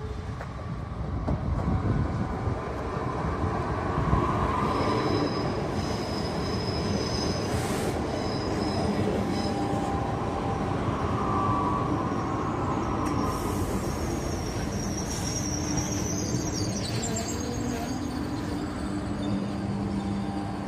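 GTT Minuetto multiple-unit train pulling into the station and slowing past at close range, a steady rumble of running gear on the track. High squealing tones from its wheels come twice as it brakes, a few seconds in and again past the middle.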